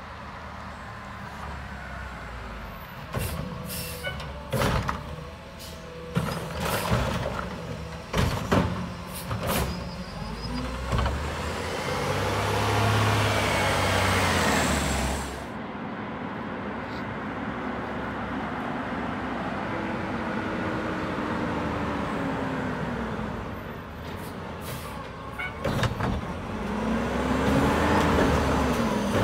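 Mack LR garbage truck with a McNeilus front-loader body and Curotto Can arm, running on natural gas: a string of sharp air-brake hisses and clunks in the first ten seconds, then the engine loudest as the truck drives close by. Near the end the engine revs up and back down as the arm lifts a cart.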